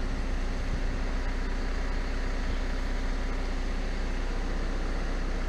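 Diesel engine of a CAT 924F wheel loader running steadily, with no revving.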